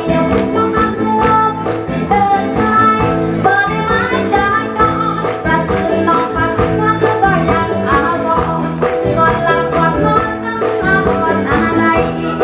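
A woman singing a Thai luk thung song into a microphone over a backing band with a steady beat.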